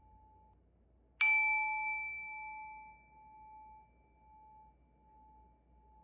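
A singing bowl struck once about a second in, a bright ring whose high overtones die away within a couple of seconds while the low tone rings on with a slow wavering pulse. A fainter ring from an earlier strike is sounding beforehand.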